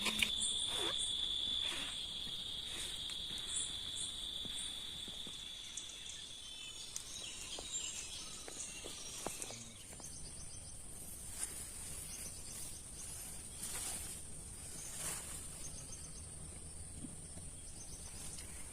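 Night insects trilling steadily: a lower-pitched trill fades out about seven seconds in while a higher-pitched one carries on, with scattered light taps.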